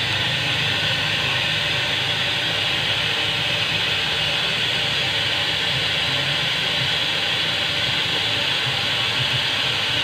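Steady hiss of air blowing out of a small capillary-tube stub on a refrigerator's refrigerant line as the sealed system is purged of air before the freon charge; the stream is still strong, so the air is not yet exhausted.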